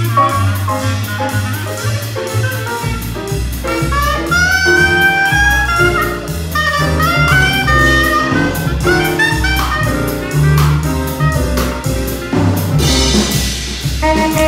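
Jazz orchestra playing, with a clarinet solo in sliding, bending notes over double bass and drum kit.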